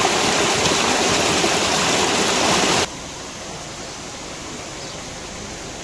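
Muddy flash-flood water rushing and churning in a steady, loud rush. About three seconds in, it drops suddenly to a quieter, even flow of water running over a gravel road.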